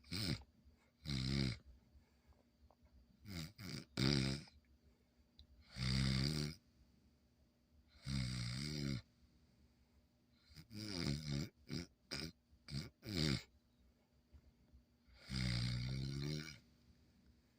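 Schnoodle puppy snoring in its sleep: a string of about ten snores spaced one to three seconds apart, some short and bunched together, others lasting about a second.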